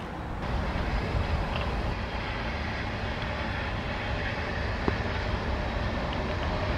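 Electric freight train approaching slowly: a steady rumble that grows gradually louder, with one sharp click about five seconds in and a faint steady whine joining near the end.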